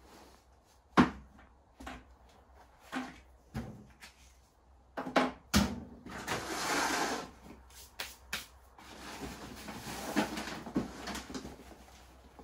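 Handling noise: a few sharp knocks and clatters as a whiteboard is set down on a shelf, then rustling as things are rummaged out of a plastic storage box and a cloth apron is shaken out.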